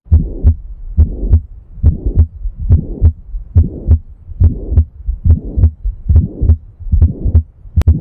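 Heart auscultation recording of pulmonary stenosis: regular paired heart sounds at about seventy beats a minute, each beat carrying a murmur, the systolic ejection murmur typical of pulmonary stenosis.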